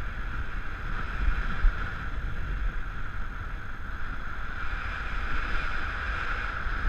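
Airflow rushing over the camera in paraglider flight: a steady wind rush with low buffeting rumble and a hiss band.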